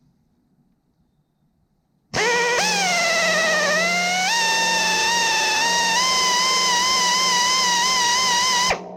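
Grinding wheel sharpening a tooth of a sawmill band blade: about two seconds in, a loud, sharp, ringing squeal starts suddenly, its pitch wavering, dipping and then steadying. It cuts off sharply near the end, leaving the steel blade ringing.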